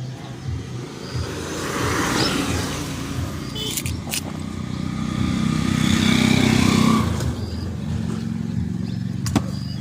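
A motor vehicle's engine running steadily, growing louder about halfway through and easing off again, with a few sharp clicks.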